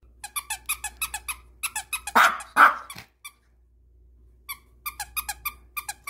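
A plush dog toy's squeaker squeezed again and again in quick runs, about four high squeaks a second, with a quiet pause in the middle. A little after two seconds in, a Maltese dog gives two loud, sharp barks at the toy.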